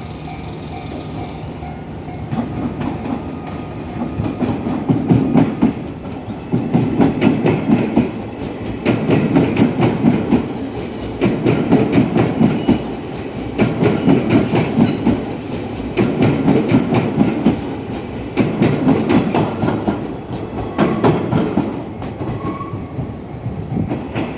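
JR 201 series electric train passing at close range, its wheels clattering over rail joints in evenly spaced groups about every two seconds. The clatter eases off near the end as the last car goes by.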